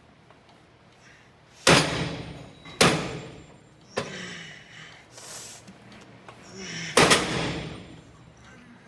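Heavy clanks of gym weights, metal striking metal: three loud ones, about two, three and seven seconds in, each ringing out for about a second, and a lighter knock at about four seconds.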